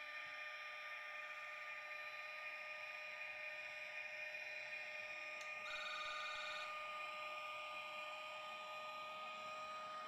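Sound decoder of a Jägerndorfer H0-scale Siemens Taurus electric locomotive model playing a steady electric traction whine as the model runs. About halfway through there is a click followed by about a second of rapid pulsing buzz.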